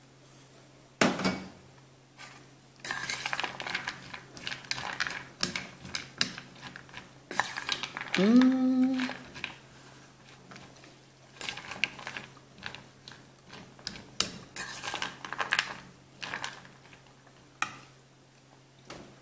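A metal spoon stirring candied fruit and chopped nuts in a stainless-steel bowl, with irregular clinks and scrapes against the bowl. About eight seconds in there is a short hum from a person's voice.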